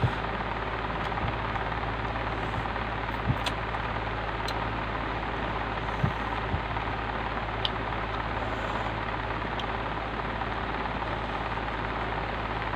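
Steady hiss and low hum, with a few sparse soft clicks and knocks from green mango slices being picked up and eaten.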